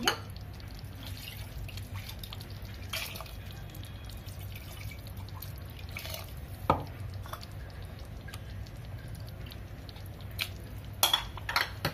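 Rinse water dripping and trickling from a steel bowl into a pot of curry, with a few sharp clicks, over a steady low hum.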